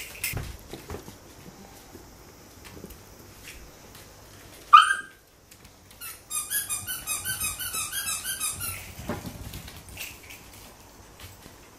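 Welsh Corgi puppies yapping: one sharp yip about five seconds in, then a quick run of short high yaps, about five a second, for two and a half seconds. Light clicks of small claws on the wooden floor run between them.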